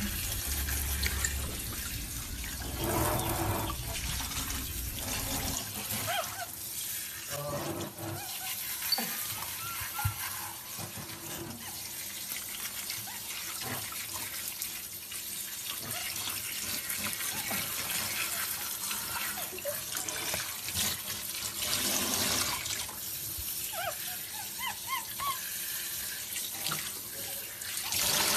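Steady running water from a hand-held shower spray, with a few short high squeaks near the end.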